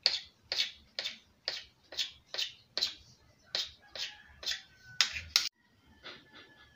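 Knife cutting rolled chin chin dough into small squares, the blade tapping sharply on a granite countertop about twice a second. The taps stop suddenly about five and a half seconds in.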